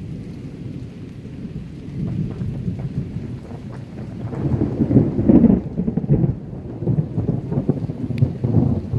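Rolling thunder from a nearby lightning storm, a low rumble that swells to its loudest about halfway through and rises again near the end.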